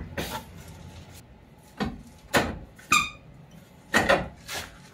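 Metal knocks and clanks from a Honda Civic's front suspension as the lower control arm is pulled and worked loose by hand. There are about six sharp hits in the second half, and one about three seconds in rings briefly like struck metal.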